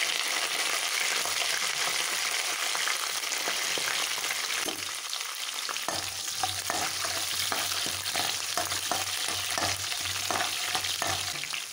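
Garlic, shallots and curry leaves sizzling in hot sesame oil in a kadai. From about six seconds in, a spatula stirs them, scraping and tapping against the pan.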